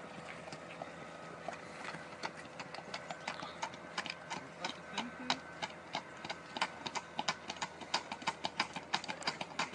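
Hooves of two horses trotting on an asphalt road, a quick clip-clop that grows louder as they come closer.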